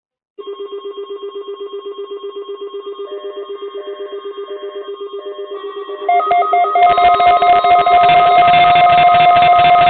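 Electronic tones: a rapidly pulsing tone with short higher notes repeating over it, then about six seconds in a louder, denser ringing electronic sound takes over.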